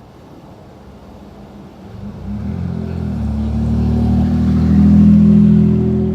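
A vehicle driving past, its low engine note building over a few seconds, peaking near the end and then fading.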